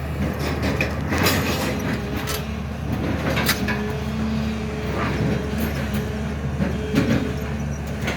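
A SANY excavator's diesel engine running steadily, with a steady whine and several sharp knocks and scrapes, about one every second or two, as it digs.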